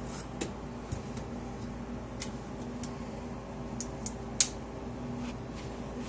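A steady mechanical hum of shop equipment runs throughout, with scattered light clicks and ticks and one sharper click about four and a half seconds in.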